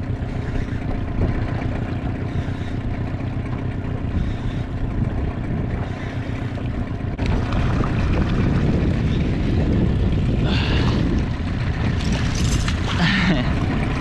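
Hooked fish splashing at the water's surface as it is reeled in towards the boat, with two louder splashes in the second half, over a steady low rumble.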